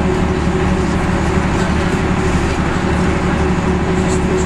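Bristol MW bus's diesel engine running steadily while the bus cruises along an open road, heard from inside the driver's cab. A steady whine sits over the engine drone.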